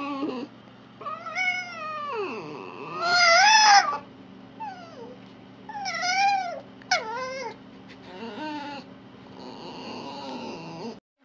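A series of about six high-pitched animal calls, each arching up and down in pitch, the loudest about three seconds in and the later ones fainter.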